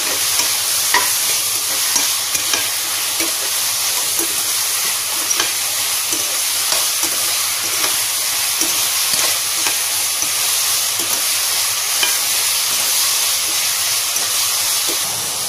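Chopped mushrooms frying in masala in an open aluminium pressure cooker, sizzling steadily as they cook down. A steel ladle stirs them, with scattered clicks and scrapes of metal on the pot.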